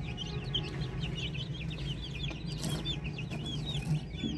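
Chicken chicks peeping: a rapid, unbroken run of short high peeps, several a second.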